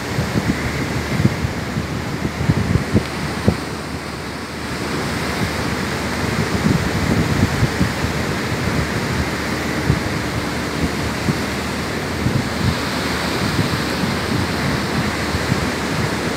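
Ocean surf washing up a sandy beach, a steady rushing wash, mixed with wind buffeting the microphone in low thumps that are heaviest in the first few seconds.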